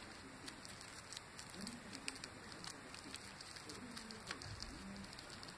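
Guinea pig chewing parsley: a faint, quick, irregular run of small crunches and clicks as it bites and grinds the leaves and stems.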